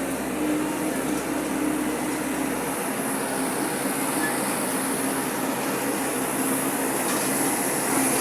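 Excavator's diesel engine running steadily with a constant hum.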